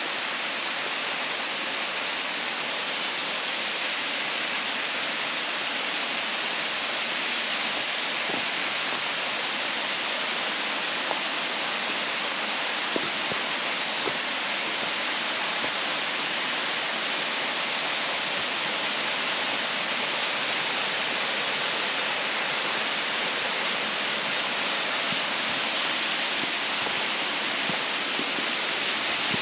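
Doyles River waterfall: a steady rush of falling water, with a few faint clicks in the middle.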